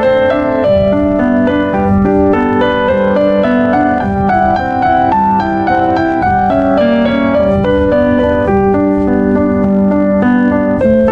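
Background piano music: a steady flow of sustained notes and chords.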